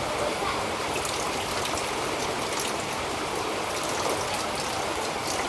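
Steady rush of flowing water, with faint small clicks and splashes over it.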